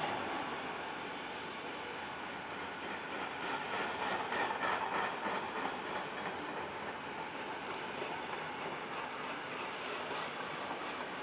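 Freightliner Heavy Haul HHA bogie coal hopper wagons rolling past, wheels clickety-clacking over the rail joints, with a louder stretch of clatter about four seconds in.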